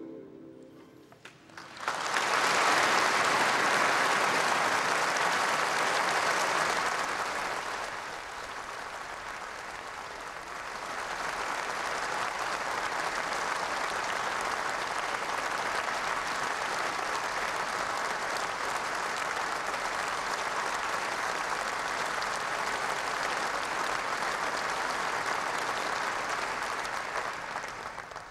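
A large audience applauding in a big hall. The clapping starts about two seconds in, eases off briefly about a third of the way through, then picks up again and holds steady until it dies away near the end.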